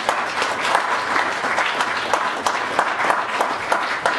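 Audience applauding: many people clapping steadily at once.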